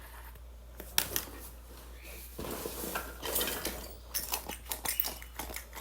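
Plastic fidget toys being handled and worked: a sharp click about a second in, then a run of lighter clicks and rattles.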